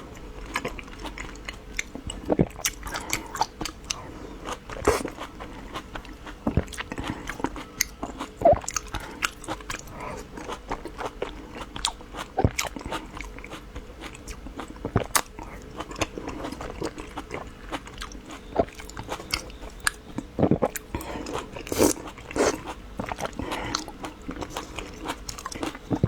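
Eating sounds: repeated bites and chewing, with short crisp crunches at irregular intervals.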